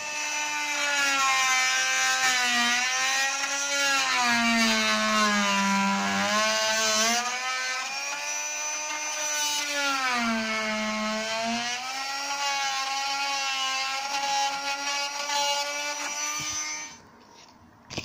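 Rockwell Sonicrafter oscillating multi-tool running as it plunge-cuts through a wooden skirting board, a steady buzzing whine. Its pitch sags twice as the blade bites and loads the motor, then the tool switches off about a second before the end.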